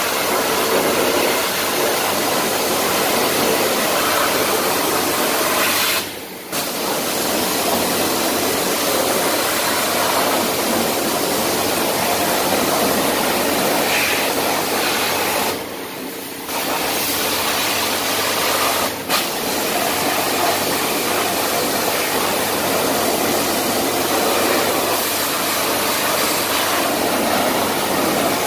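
Hot-water spray wand hissing steadily as it jets water and steam into a car's engine bay, with a low steady hum underneath. The spray stops briefly three times: about six seconds in, for about a second near the middle, and for an instant a few seconds later.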